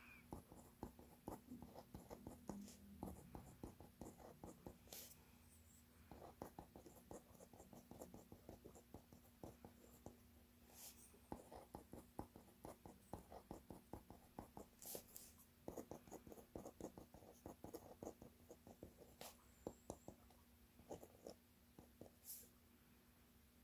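Faint scratching of a pen writing on lined notebook paper: clusters of short strokes with brief pauses between words.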